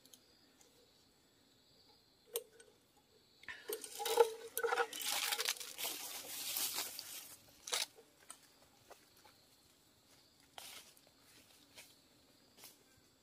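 Rustling and crunching of dry leaf litter and undergrowth as a person moves through forest brush, loudest for about four seconds in the middle, with a few single snaps and rustles before and after. A faint steady insect buzz runs behind.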